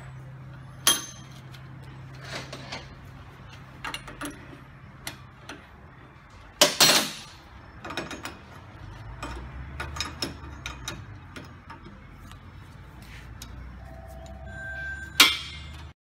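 Metal clinks and knocks from a spanner working a reusable hydraulic hose fitting clamped in a bench vise, as the fitting is tightened fully onto the hose. The sharp knocks are scattered, with the loudest about halfway through, over a steady low hum.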